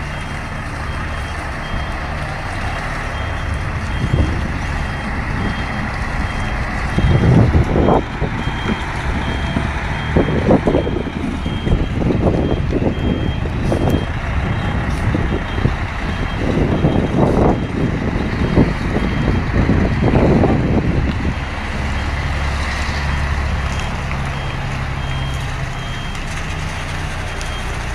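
Mercedes-Benz Actros semi truck's diesel engine running at low speed as it manoeuvres a bitrem (B-double) trailer rig, with a reversing alarm repeating a high beep through roughly the first half. Through the middle come irregular loud low bursts of rumble over the engine.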